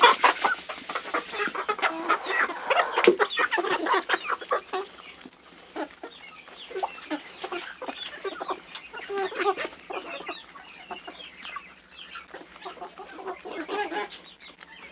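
A flock of chickens clucking as they eat. A busy patter of sharp clicks runs through the first four seconds, then scattered, quieter clucks follow.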